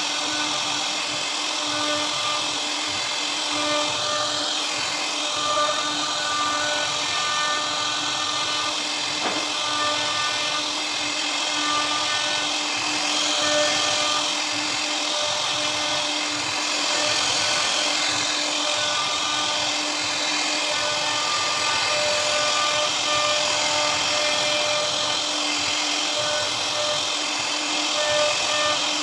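CNC router spindle running with its bit carving a relief pattern into a wooden door panel: a steady whine over the hiss of the cut, with tones that come and go as the cut changes.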